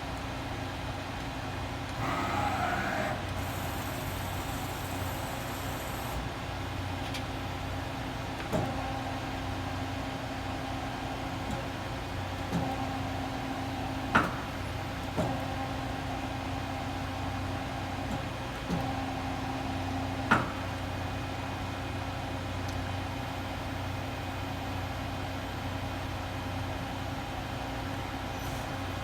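Doosan Lynx 300 CNC lathe running with a steady mechanical hum. A brief swooping whine comes about two seconds in, and several sharp clunks follow in the middle stretch, two of them closing a couple of seconds of louder whine.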